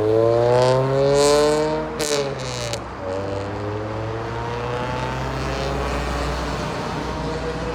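Road traffic: a passing vehicle's engine rises in pitch as it accelerates for about two seconds, then drops away, leaving a steady traffic hum. A few short hissing bursts come just after two seconds in.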